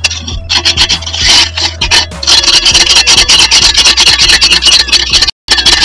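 Scale deposits being scraped off the inside of an electric water heater's tank: a fast, repeated rasping scrape, stroke after stroke. It breaks off for a moment near the end.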